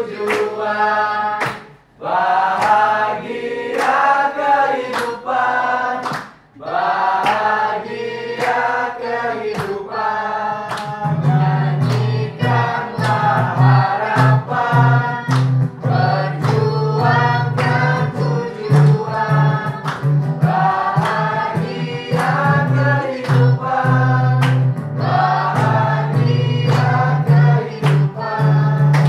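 A roomful of people singing along together in chorus, keeping time with steady hand claps. About a third of the way in, a strummed acoustic guitar joins with a strong, steady low part under the voices.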